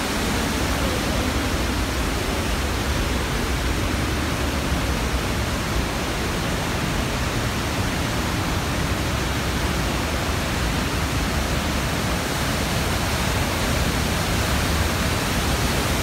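Steady rush of the Palovit waterfall, water falling and churning over rocks.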